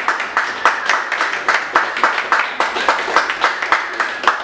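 Audience applauding, with close-by claps standing out in a quick, even rhythm of about five a second over the clapping of the rest.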